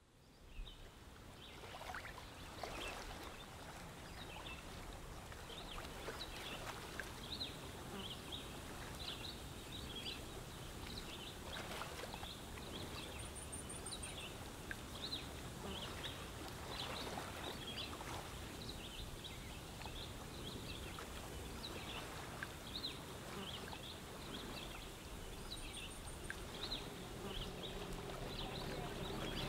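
Outdoor nature ambience: a steady soft hiss with many short, high chirps scattered throughout, and a brief very high trill twice, about midway and near the end.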